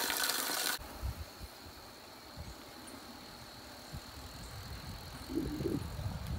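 Water streaming close to the microphone, cut off abruptly under a second in. Then only a faint low rumble with a few light knocks, and a short pitched sound near the end.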